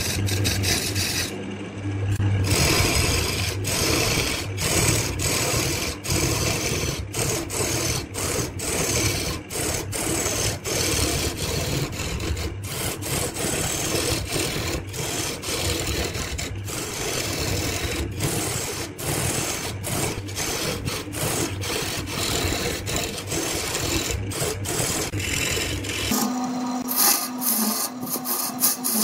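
Wood lathe turning a wooden blank while a hand-held turning tool cuts into it: steady scraping and hissing of the tool shaving the spinning wood, broken by many brief breaks. Near the end the low rumble drops away and a steady hum with a brighter hiss is left.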